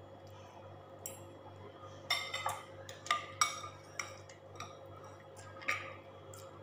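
Metal spoon and fork clinking and scraping against ceramic bowls as food is scooped up: several short sharp clinks, most of them bunched between about two and three and a half seconds in, over a steady low hum.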